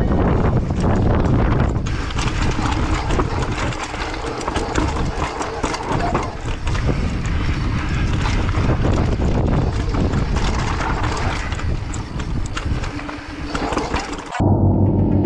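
Scott Gambler downhill mountain bike ridden fast down a dry dirt trail: tyres crunching over dirt and loose stones, with constant rattling and knocking from the bike on the bumps and wind rumbling on the camera's microphone. Near the end it cuts off suddenly into low droning music.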